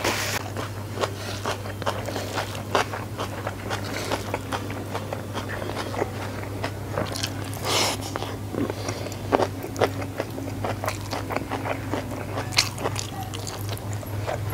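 Close-miked eating by hand: chewing a mouthful of rice with sambal and petai beans, with many short wet smacks and crunchy clicks, over a steady low hum. A short hiss comes about halfway through.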